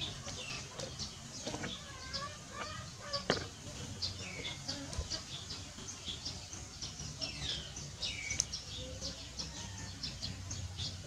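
Birds chirping in many short, quick peeps and downward-sliding calls, with a few sharp clicks.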